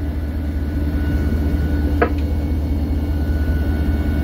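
The 16-cylinder two-stroke diesel engine of an EMD SD40-2 locomotive running steadily, heard inside its cab as a deep, even rumble. There is a short click about two seconds in.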